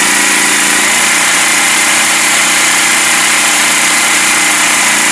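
Honda GX390 13 hp single-cylinder petrol engine running steadily under load, driving a pressure washer's plunger pump.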